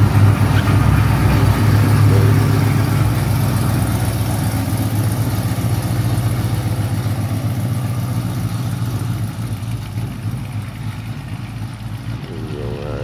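Car engine idling steadily, getting gradually quieter over the last few seconds.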